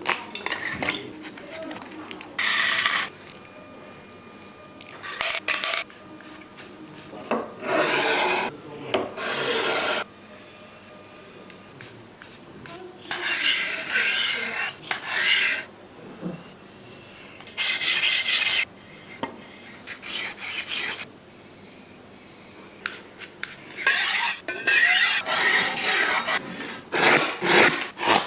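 Blade being drawn through a handheld knife sharpener, making rasping, scraping strokes. The strokes are separate and spaced out at first, then come in quick short runs near the end.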